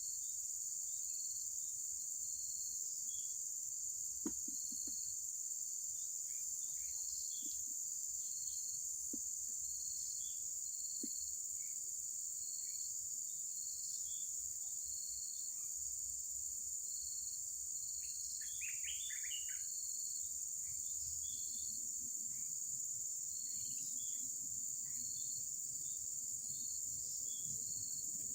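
Steady high-pitched chorus of insects, with scattered bird chirps and a short cluster of chirps around two-thirds of the way through. A few faint clicks come in the first half.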